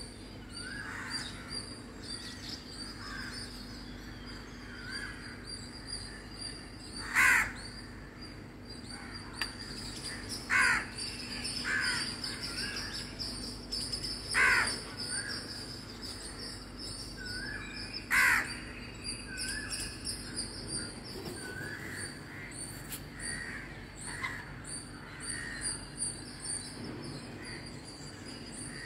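House crows cawing: four loud single caws spaced several seconds apart. Softer bird chirps repeat between them over a steady high insect hum.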